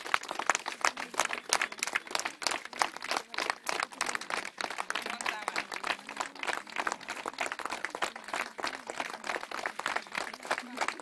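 A crowd of schoolchildren clapping, a dense, irregular patter of many hands that keeps up steadily.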